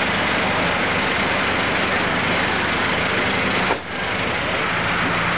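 Limousine engine idling under a steady hiss. There is a brief drop in the sound a little before four seconds.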